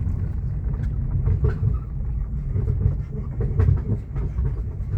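Car driving slowly over a rough, stony dirt road, heard inside the cabin: a steady low rumble with scattered knocks and rattles as the wheels go over bumps.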